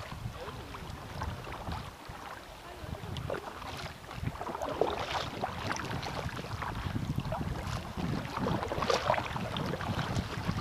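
Kayak being paddled: double-bladed paddle splashing in and out of the water, with water sloshing and gurgling along the hull, and a little wind on the microphone.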